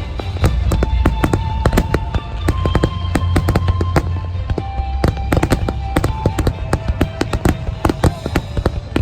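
Aerial fireworks bursting in quick succession, dense sharp crackling over deep low booms, with music of long held notes playing underneath.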